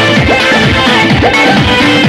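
Loud recorded dance music played over stage loudspeakers, with a fast, steady beat of drum hits that bend down in pitch.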